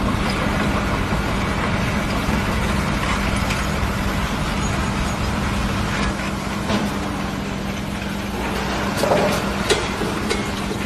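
A large engine running steadily with a constant low hum, typical of heavy construction machinery or a truck. A few light knocks can be heard.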